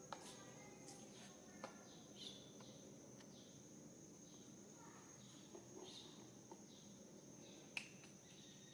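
Near silence: a faint, steady, high insect drone, with a few sharp soft clicks and some short, faint high chirps.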